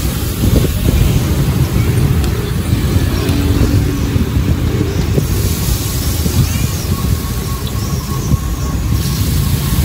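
Steady low rumble of street traffic, with hot oil sizzling in a frying pan, the sizzle a little stronger past the middle.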